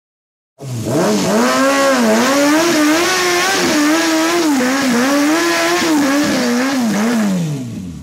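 Kawasaki Ninja ZX-6R's inline-four engine revved hard and held near the top of its range during a burnout on the worn-out rear tire, its pitch wavering up and down. It starts abruptly about half a second in, and the revs drop away near the end.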